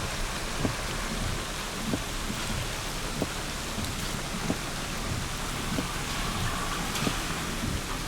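Footsteps at a steady walking pace, about one and a half a second, over a continuous hiss like rain or wind on the microphone.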